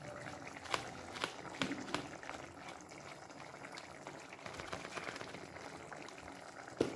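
Thick kidney-bean curry gravy bubbling at a boil in a kadai, with scattered soft pops and a sharper click near the end.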